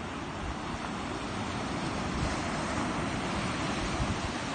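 Ocean surf breaking and washing up a sand beach, a steady rush of waves that swells a little midway, with wind rumbling on the microphone.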